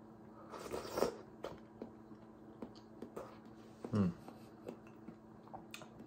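Someone eating with a spoon from a stainless steel pot: chewing, small clicks of the spoon against the pot, a short breathy slurp about a second in and a brief hummed "mm" about four seconds in, over a faint steady hum.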